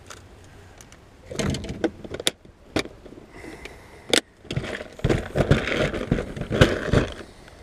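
Handling noise: a few sharp clicks and knocks, then several seconds of close rustling and knocking that stops shortly before the end.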